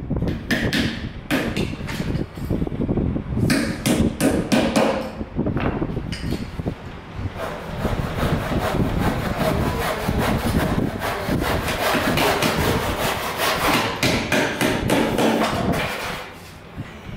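Hammer striking nails into wood while a wooden strip is fixed to a plywood crate. The strikes come in short groups at first, then in a long run of quick blows, easing off near the end.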